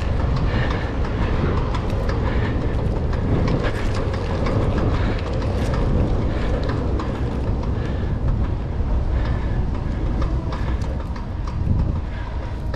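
Riding noise of a 700c single-speed bicycle: steady wind rush over the microphone and the narrow tyres rumbling on pavement, with scattered small clicks and rattles from the bike over the bumps.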